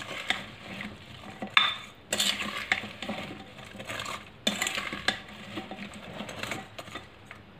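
A white plastic spoon stirring and tossing chunks of raw mango coated in oil, vinegar and spices in a cut-glass bowl, scraping and knocking against the glass in an irregular rhythm. A few sharper clinks stand out, about one and a half, two and four and a half seconds in.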